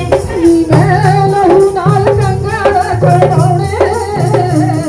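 Sikh devotional kirtan: a voice singing a Punjabi hymn over instrumental accompaniment with a repeating drum beat, heard through a horn loudspeaker.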